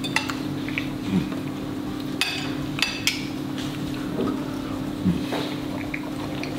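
Metal knife and fork clinking and scraping on a ceramic plate while cutting pancakes: a few sharp, ringing clinks spread a second or more apart, over a steady low hum.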